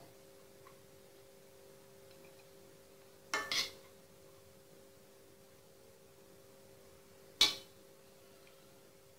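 Ceramic plate clinking twice against the stovetop as it is shifted by hand: a short double clink about three seconds in and a sharper single clink, the loudest, near the end. A faint steady hum runs underneath.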